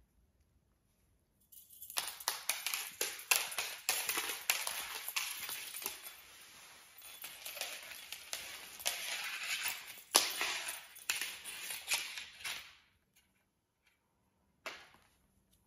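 Scratchy rustling and scraping with many sharp clicks as two Siberian cats wrestle, their claws and bodies scrabbling on a felt play mat and a wooden floor. It starts about a second and a half in and stops a little before the end, with one short scrape after.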